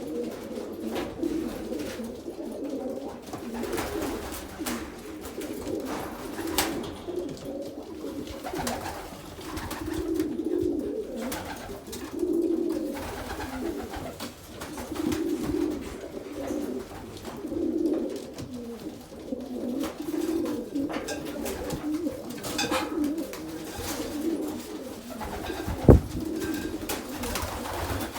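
Domestic pigeons cooing continuously inside a loft, many birds overlapping in low swelling coos, with scattered light clicks and one sharp knock near the end.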